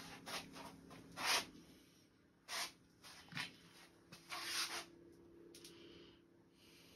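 Faint handling noises: a handful of short rubs and scuffs from a hand working a red plastic cup of epoxy, the loudest about a second in, over a low steady hum.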